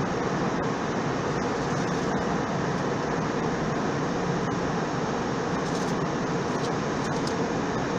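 Steady cabin noise inside an airliner in flight: an even drone of engines and rushing air.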